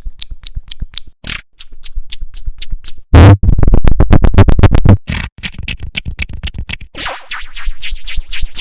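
Electronic meme remix of a short sound clip, chopped into rapidly repeated stutters that speed up, with a very loud, distorted stretch from about three to five seconds in.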